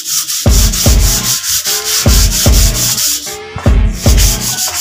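Sandpaper rubbing back and forth over the wooden top of an old Singer sewing-machine table, under background music with a deep, regular beat.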